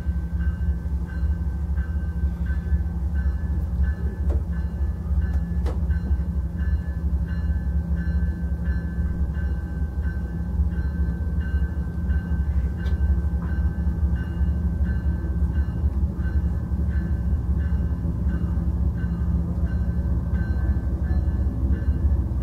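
Amtrak diesel locomotive running with a steady heavy rumble as it moves up slowly toward the train, with a faint repeating ring over it, typical of its bell. A single sharp clank comes a little before six seconds in.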